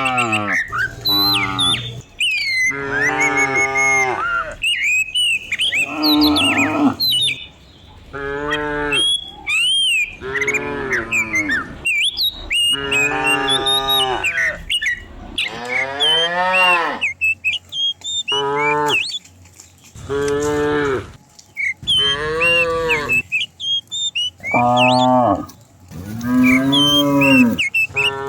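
A herd of cows mooing, one long arching call after another from several animals, often overlapping, with only brief gaps.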